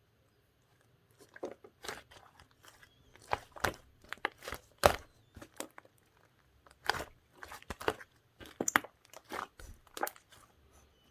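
Slime being squeezed and pressed by hand, giving an irregular run of sticky clicks and crackles.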